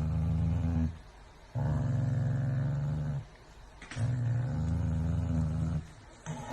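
An animal's low, drawn-out call, repeated three times with short pauses between.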